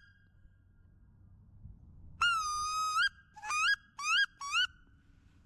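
Wood duck call blown in whistling squeals: one long note about two seconds in, then three short quick ones, each rising at the end.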